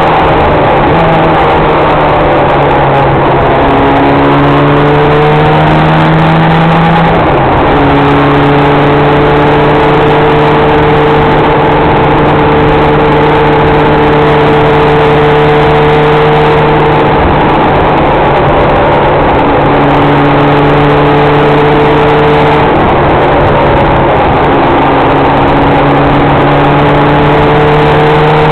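A vehicle's engine running under way, heard through loud wind and road noise on the camera's microphone. The engine note falls over the first few seconds, drops suddenly about seven seconds in, then holds mostly steady with small shifts in pitch.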